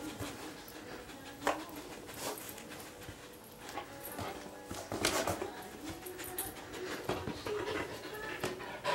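A dog sniffing hard with its nose pushed into a quilt, irregular short sniffs and snuffles with the fabric rustling.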